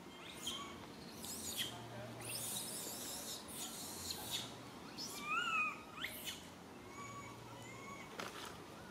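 Baby macaque crying for its mother: a string of short, shrill, high-pitched cries, with one louder wavering coo about five seconds in and a few thinner, whistly calls near the end.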